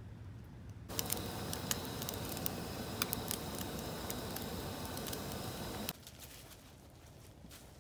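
Bacon sizzling and crackling in a cast-iron skillet on a camp stove, starting suddenly about a second in and cutting off suddenly near six seconds. After it come a few faint soft ticks, like footsteps in dry leaves.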